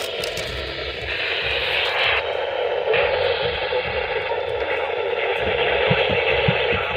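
Steady static hiss from a weather radio receiver, with the narrow, tinny range of radio audio.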